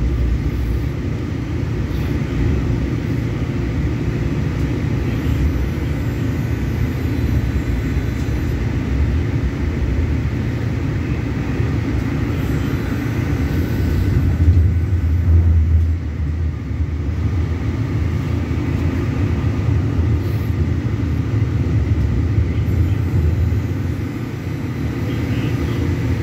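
Steady low rumble of a light-rail train running along its track, heard from inside the car, swelling briefly a little past the middle.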